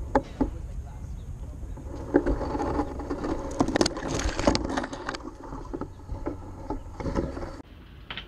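Handling noise on a GoPro camera as it is jostled among tree branches: rustling, scraping and sharp knocks against the housing, busiest and loudest between about two and five seconds in. The sound drops off abruptly near the end.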